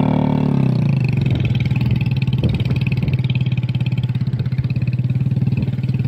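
Motorcycle engine running as the bike is ridden, a low, even note with a fast regular beat; it eases off slightly in the first second, then holds steady.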